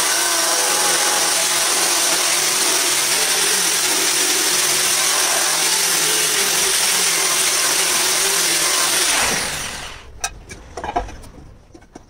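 Angle grinder with an abrasive disc grinding the edge of a clamped marble slab: a loud, steady whine and grinding noise. About nine seconds in it is switched off and spins down with a falling pitch, followed by a few light knocks.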